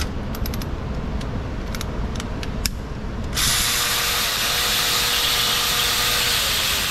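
Scattered metallic clicks of a ratchet wrench cracking bolts loose, over a low shop rumble. About three and a half seconds in, a loud steady hiss of air begins, carrying a faint steady whine.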